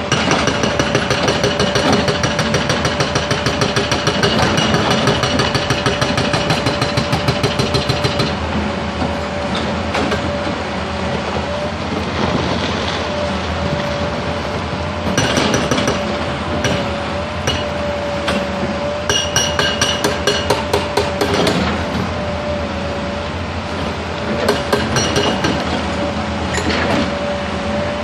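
Excavator-mounted hydraulic rock breaker hammering rock: a long run of rapid, even blows over the excavator's running engine, stopping about eight seconds in, then several shorter runs of blows.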